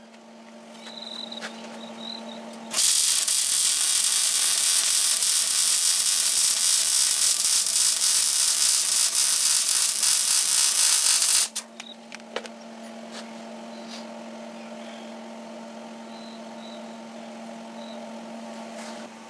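Wire-feed welder running a bead where the cross member meets the steel chassis rail. The arc crackles steadily for about nine seconds, starting about three seconds in and cutting off sharply. Before and after it, a low steady hum.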